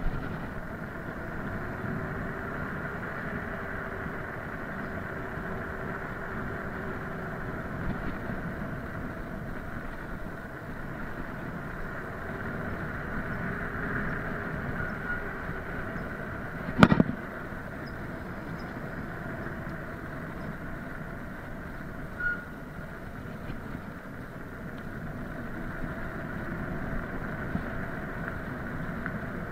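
Electric hub motor of a FAT MAX scooter whining steadily under way, its pitch drifting a little with speed, over tyre and road noise. A single sharp knock about seventeen seconds in.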